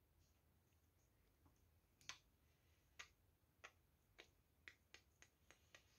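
Very quiet room tone with a run of soft, sharp clicks starting about two seconds in, about ten of them, coming faster toward the end.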